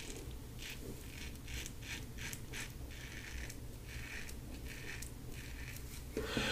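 LASSCo BBS-1 stainless steel safety razor with a Gillette Silver Blue blade rasping through two days' stubble on a lathered neck: a dozen or so faint, quick scraping strokes, a few each second.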